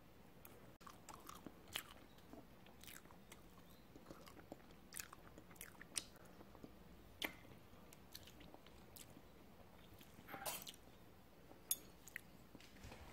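Near silence with faint, scattered small clicks and brief soft noises, the loudest a short rustle about ten and a half seconds in.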